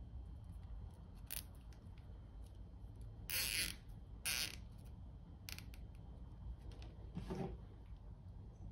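Nylon zip tie being pulled tight around a Bowden tube and a braided wiring sleeve: four short ratcheting rasps over a few seconds, with light handling rustle.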